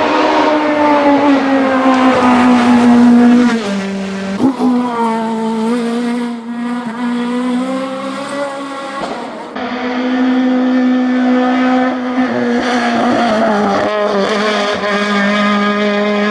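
Four-cylinder kit-car rally engine screaming at high revs under hard acceleration, its pitch dipping and climbing again with gear changes. The sound jumps abruptly to a new passage about every five seconds.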